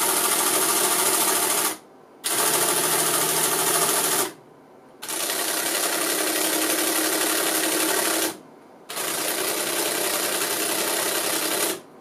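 Small electric motors and gear train inside a Decca navigation indicator whirring while they drive the latitude and longitude counter drums to new settings. The sound comes in four runs separated by brief stops.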